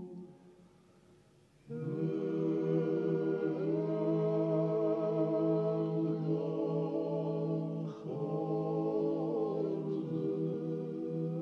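Georgian polyphonic choir singing a cappella, sustained chords over a held low drone. The voices fade out at first, come back in together about two seconds in and hold, with brief breaks for breath about eight and ten seconds in.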